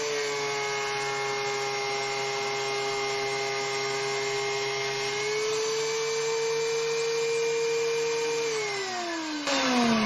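DeWalt benchtop thickness planer running with a steady high whine, its pitch sagging slightly while a board feeds through and rising again a little after halfway as it clears the cutterhead. Near the end it is switched off and the whine falls away as the cutterhead spins down, with a short burst of noise as it winds down.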